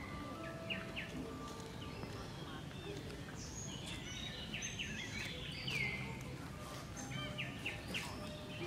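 Birds chirping and calling among trees, with several short chirps and a clear downward-sweeping call a little past the middle, over a steady low background hum of open-air ambience.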